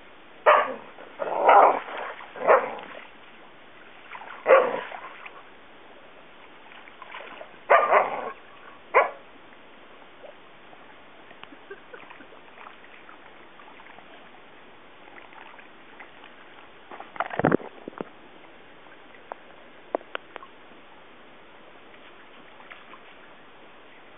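Dog barking in play, six short barks over the first nine seconds, then quiet apart from small knocks and one more sharp sound about seventeen seconds in.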